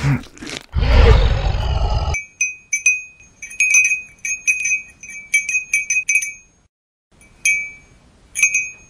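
A hippopotamus feeding gives a loud, low, rough sound that cuts off about 2 seconds in. Then come uneven clusters of short, high, ringing clinks, like small chimes, as crabs clamber over a pile of seashells, with a brief pause near the end.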